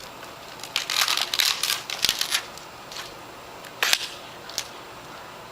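A quick run of sharp clicks and scraping, then two separate sharp snaps about four seconds in: layers of a tablet's screen glass being pried and cracked off.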